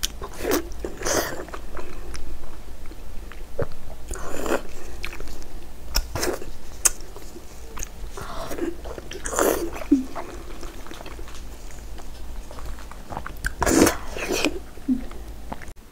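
Close-miked eating sounds: a woman biting into and chewing a large slab of soft braised pork belly, with wet mouth sounds coming in irregular bursts every second or two.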